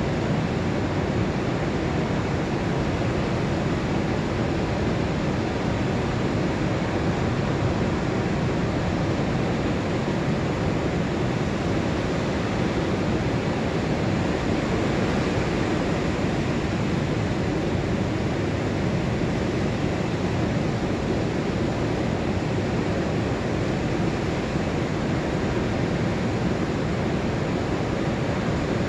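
Pacific Ocean surf breaking and washing up the beach on an incoming tide: a continuous, steady rushing noise with no single wave standing out.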